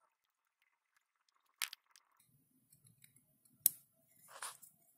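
A few faint handling sounds as fingers hold and work a small circuit board: two sharp clicks, about a second and a half and three and a half seconds in, and a short rustle near the end.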